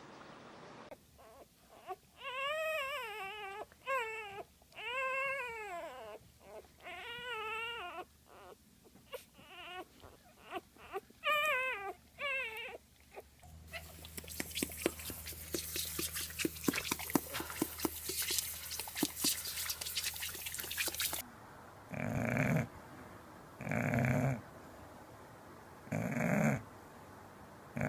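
A dog whining in long, wavering calls with a wobbling pitch, one after another. These give way to a stretch of rapid clicking and noise, then to short rough bursts about every two seconds.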